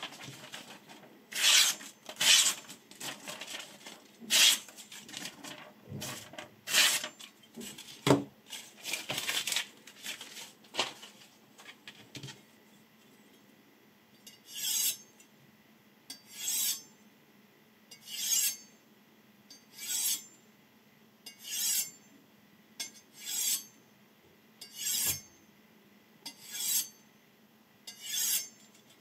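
A kitchen knife's steel blade stroked along a white ceramic honing rod, nine even rasping strokes about every 1.7 seconds through the second half. Before that comes a quicker, irregular run of scraping and rustling strokes.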